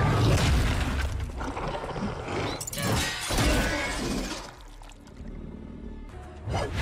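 Action-film fight sound effects: a run of crashing, shattering hits and clatter over the film score. It drops quieter about four and a half seconds in, then picks up again near the end.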